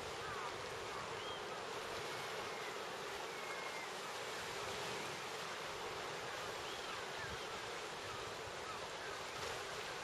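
Steady rush of surf and wind off the sea, with faint seagull cries, short rising-and-falling calls, scattered through it.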